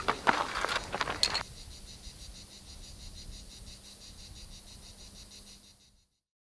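A few sharp clicks in the first second and a half. Then faint, steady, high-pitched insect chirping with a low hum beneath, which cuts off suddenly about six seconds in.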